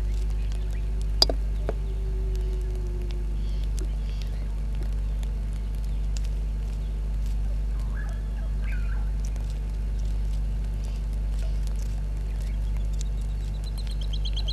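Steady low hum with a single sharp click about a second in. Faint bird calls come around the middle, and near the end a bird's fast pulsed trill starts, slowly falling in pitch.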